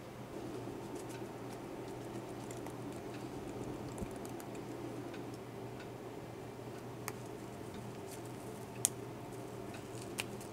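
Quiet kitchen room tone with a steady low hum, over which come scattered small clicks and taps from hands handling ingredients and the dish. The sharpest tap comes about nine seconds in.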